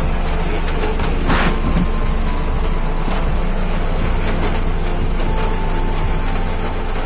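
Passenger van's engine running, a steady low rumble heard from inside the cabin. A brief rustle about a second in.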